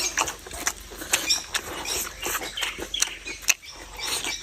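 A person eating: chewing and smacking with many quick, irregular clicks.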